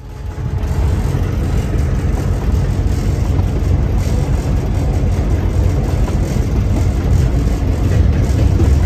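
Locomotive engine running with a steady, loud low drone, heard from inside the cab; it cuts in at the start.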